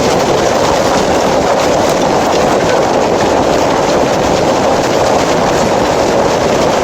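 A hailstorm: a loud, steady rush of hailstones pelting down, with many small sharp hits scattered through it.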